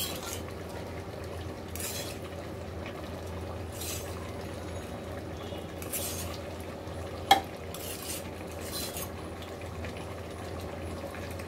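Steel ladle scooping fried potatoes and oil out of a black iron kadai and tipping them into an aluminium pressure cooker: short metal-on-metal scrapes and clinks every couple of seconds, with one sharp clink about seven seconds in, over a steady low hum.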